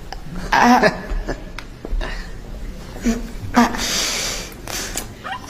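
A person's voice making short wordless sounds in several separate bursts, some breathy.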